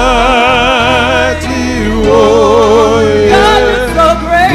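A woman singing a gospel worship song through a microphone, with wide vibrato on long held notes, over a low, sustained instrumental accompaniment.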